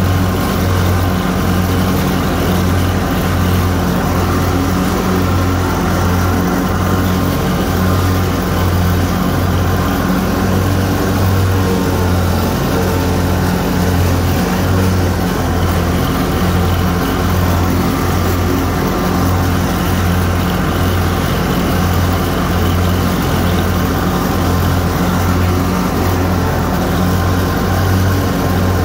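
Snapper Z Rider Pro Cruiser commercial zero-turn mower running at high throttle while mowing, a loud, steady engine drone with a strong low hum, heard from the operator's seat.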